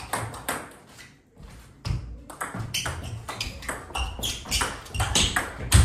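Table tennis rally: the celluloid-type ball clicking sharply off the bats and the table, sparse at first, then coming quickly, several a second, from about two seconds in. Players' feet thud on the floor underneath, with one heavy thud near the end.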